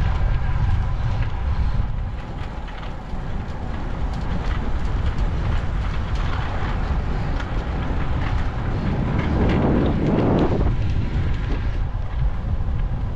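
Wind rushing over the microphone of a road bike ridden at speed, with a steady low road rumble. About nine seconds in, a louder swell builds for a second or so and then drops off sharply.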